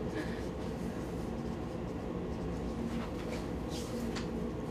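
Steady room hum from the ventilation, with a few faint short squeaks of a dry-erase marker on a whiteboard in the second half.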